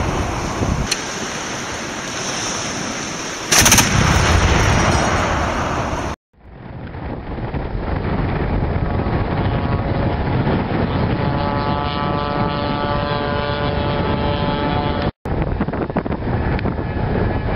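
Twin-barrelled 23 mm anti-aircraft cannon (ZU-23-2) firing, with a sharp single crack about three and a half seconds in and a rapid run of shots near the end. In between there is a steady rushing noise with a faint humming drone.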